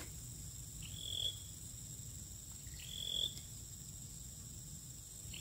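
A short, high animal call that steps up in pitch, repeated about every two seconds, over a steady faint high-pitched whine.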